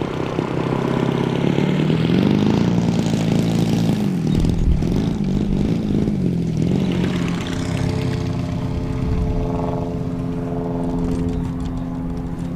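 Engine of an RC tow plane running, its pitch wavering up and down for a few seconds before holding steady.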